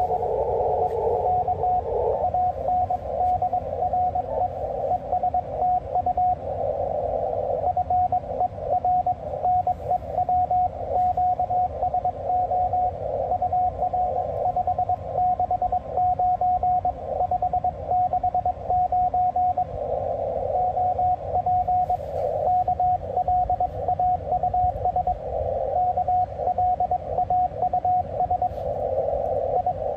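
Morse code (CW) from an amateur HF transceiver: a single beep tone keyed on and off in quick dots and dashes, over band noise that swells and fades in the receiver's narrow passband.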